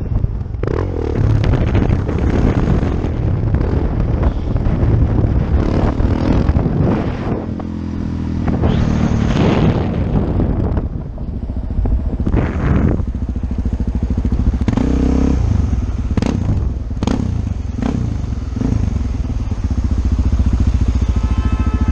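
Dirt bike engine heard close up from the rider's helmet, revving up and down repeatedly as the bike is wheelied and ridden through traffic.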